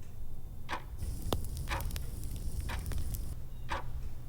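Clock ticking about once a second over a low room rumble, with one sharper click about a second and a half in.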